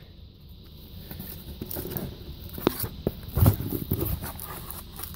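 Cardboard shipping box being opened by hand: flaps rustling and scraping, with a sharp click near the middle and a heavier thump about three and a half seconds in.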